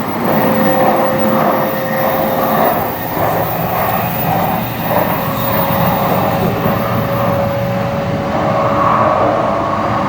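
Tokaido Shinkansen N700A bullet train running steadily, a continuous rumble of wheels and rushing air with a thin steady hum over it.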